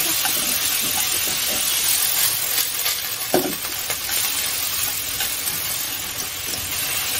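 Bean sprouts sizzling and hissing in a hot wok over high heat as chopsticks stir and toss them, with a few light clicks.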